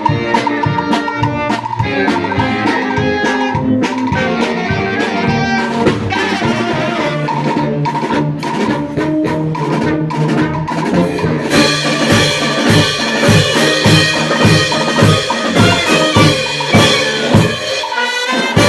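Brass band with drum kit playing a pasodoble, horns over a steady beat. About two thirds of the way through, the full band comes in fuller and brighter.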